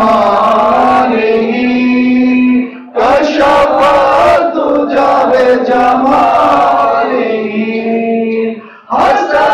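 A man sings a naat, a devotional song in praise of the Prophet, a cappella through a microphone and PA in long drawn-out phrases. The singing breaks off briefly for a breath about three seconds in and again near the end.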